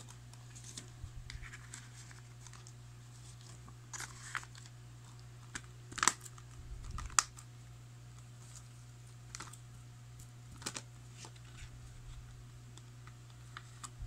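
Handling of a plastic Blu-ray case and its cardboard slipcover: a scattering of sharp clicks and taps as the case is shut and slid into the sleeve, the loudest about six and seven seconds in, over a steady low hum.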